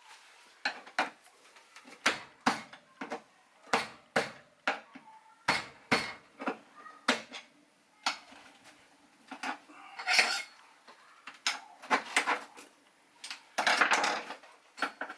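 Metal hand tool chipping and scraping at ceramic tile and grout: a run of irregular sharp clinks, with longer scrapes about ten and fourteen seconds in.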